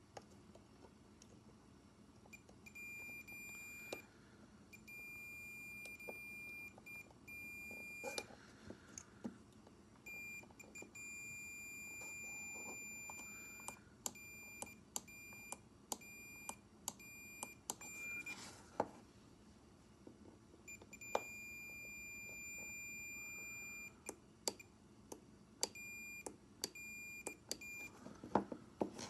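Electronic beeper giving one steady high-pitched tone that switches on and off irregularly, some beeps brief and some lasting a few seconds, with sharp clicks scattered between them.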